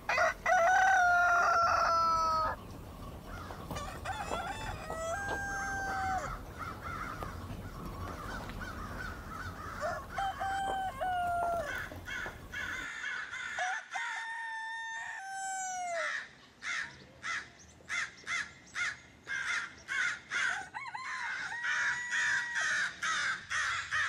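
Rooster crowing, with one loud, long crow near the start and fainter answering crows from other roosters. After about 13 seconds come quick, short repeated bird calls, about two a second.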